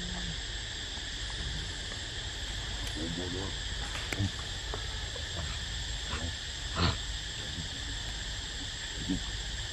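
Macaque giving short calls, the first trailing off right at the start and another brief run about three seconds in, over a steady high insect buzz. A sharp, loud sound comes a little before the end.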